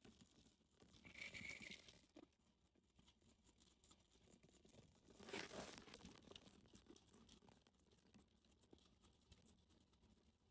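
Faint crunching and tearing of a fresh corn leaf as a guinea pig chews it, in two short bouts, about a second in and again around five seconds in, with soft nibbling ticks between.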